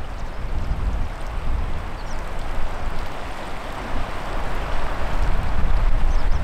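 Wind noise on the microphone, a low rumble, over a steady rush of choppy river water.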